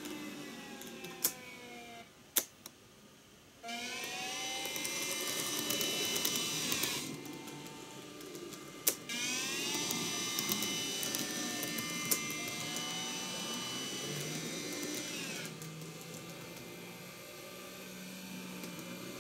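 Small electric motors of DCC-controlled N-scale model trains whining as they run, the whine rising in pitch as a train speeds up and falling as it slows, with wheels rumbling on the track. A few sharp single clicks cut through, around one second in, two and a half seconds, nine and twelve seconds.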